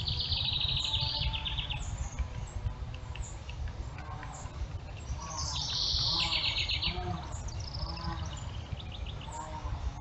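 A songbird singing a rapid high trill twice, each lasting about a second and a half, with a fainter trill near the end, over a steady low rumble.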